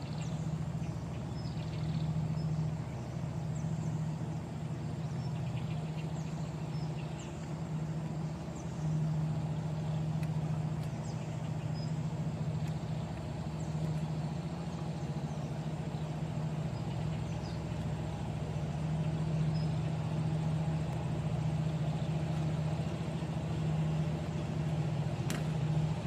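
Steady low motor hum with a slight waver in level, over a constant background rush.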